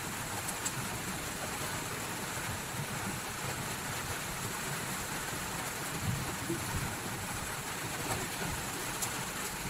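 Kamias and chicken feet cooking in a wok over the burner: a steady sizzling hiss with a low rumble under it.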